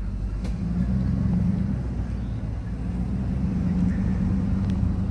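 Pickup truck engine running steadily as it drives along a sandy dirt trail, with tyre and road noise; the engine note firms up about a second in, and a couple of faint clicks sound over it.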